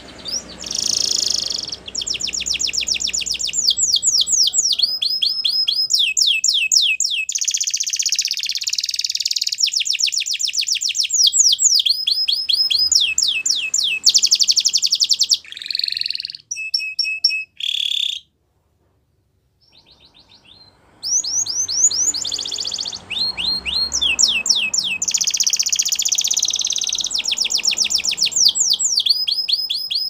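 Domestic canary singing a long, loud song of fast rolling trills and rapidly repeated high notes. It breaks off for about two seconds a little past the middle, then starts again.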